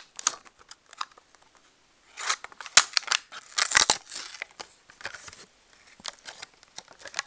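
Paper wrapping being handled and pulled open by hand: irregular rustling and crinkling with small sharp clicks, loudest in two bursts about two and four seconds in.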